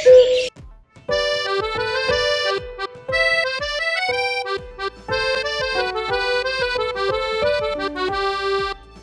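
Short accordion-like instrumental tune of quick notes starting about a second in, played as a phone ringtone.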